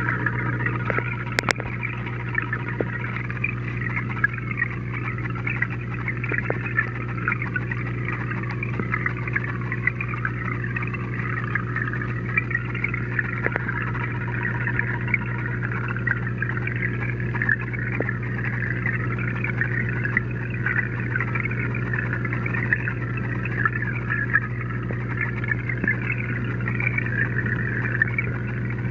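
Saltwater aquarium's circulation pumps, heard through a camera submerged in the tank: a steady low hum under a continuous bubbling, churning wash of moving water, with a few faint ticks and one sharp click about a second and a half in.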